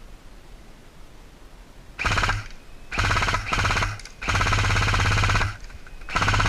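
G&G CM16-LMG electric airsoft light machine gun firing full-auto bursts, its gearbox cycling in a rapid even rattle. There are five bursts, starting about two seconds in: one short, two quick ones together, a longer one of about a second, and one more near the end.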